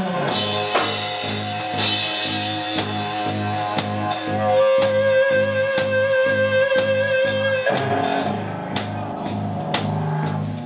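Rock band playing an instrumental break: lead guitar over bass and a steady drum beat, holding one long note with vibrato for about three seconds midway.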